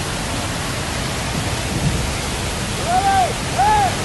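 Floodwater rushing in a fast, turbulent torrent: a steady, loud rush of water noise. Near the end a person's voice calls out twice, briefly.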